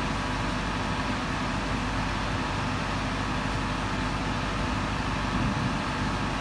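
Volvo EC55D mini excavator's diesel engine idling steadily with an even low hum.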